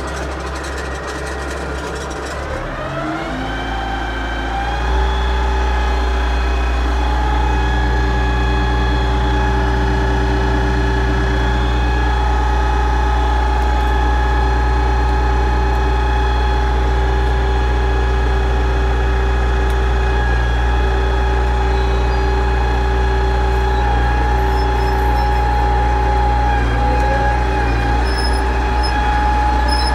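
Yanmar CT-65 track tractor's diesel engine heard from inside the cab, revving up about three seconds in and then running steadily at the higher engine speed.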